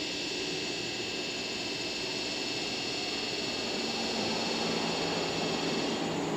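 Electric locomotives moving slowly through a rail yard: a steady high-pitched whirr of running equipment, with a low hum that comes in about halfway. The whirr drops away near the end.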